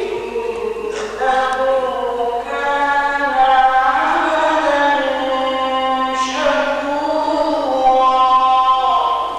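A man's voice reciting the Quran in the melodic tajweed style: long held notes that bend up and down in one drawn-out melismatic phrase, with a short break about six seconds in.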